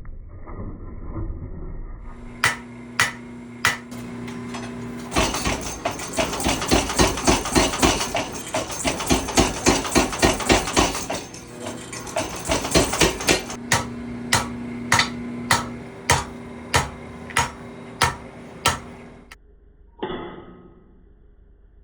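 Forging punches from steel: hammer blows on steel over a steady machine hum from the power hammer's motor. A few single ringing strikes come first, then a long run of rapid pounding, then a steady series of single ringing strikes, about one and a half a second, which stop about two seconds before the end.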